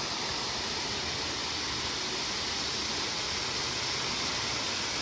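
Waterfall pouring over rock ledges close by: a steady, even rushing of falling water.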